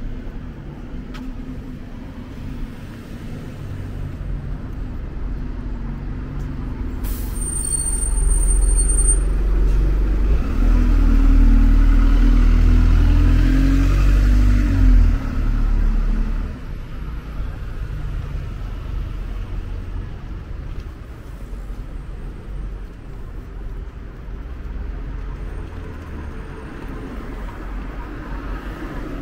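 Road traffic passing close by. A vehicle's low engine rumble swells and is loudest from about a third to just over halfway through, with a brief high hiss as it comes in. Lighter car traffic follows.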